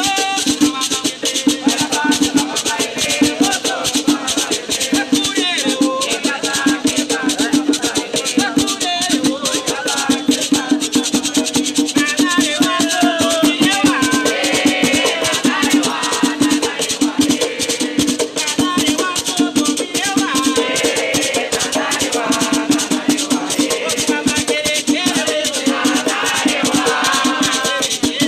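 Afro-Brazilian batuque drumming: hand drums played with fast, dense strokes, with men singing a chant to the orixás over them.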